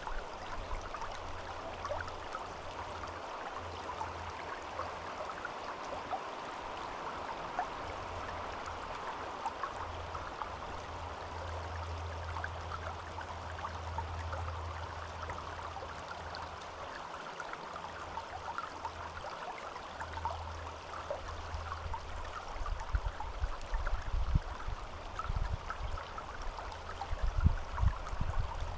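Forest stream running steadily, a continuous babble of flowing water. In the last few seconds a low, uneven rumble grows under it.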